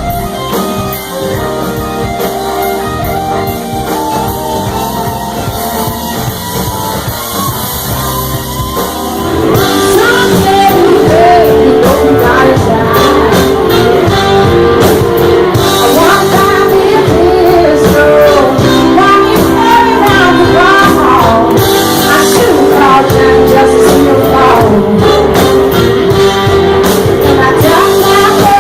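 Blues-rock music with guitar: a quieter instrumental passage, then about ten seconds in it gets louder and a singer comes in.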